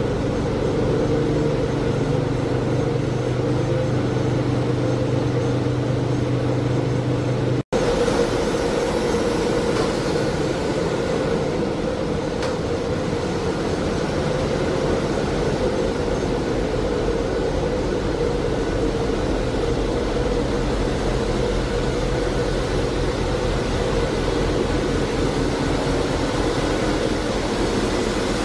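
Ship's engine-room machinery running: a loud, steady drone with several held low tones. There is a momentary break about eight seconds in, after which the low tones shift.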